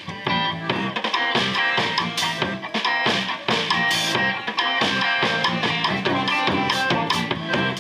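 Live band playing a rock song, heard from right behind the drum kit: the drums sound loud and close, over electric guitar and bass.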